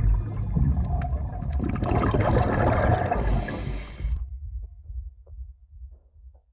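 Underwater sound of scuba diving picked up by a camera in its housing: a low rumble and a rush of regulator exhaust bubbles that builds and cuts off suddenly about four seconds in, leaving only a faint low rumble.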